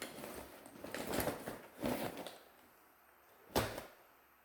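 Rustling and handling of a bag of unboxed items for about two and a half seconds, then a single sharp knock about three and a half seconds in.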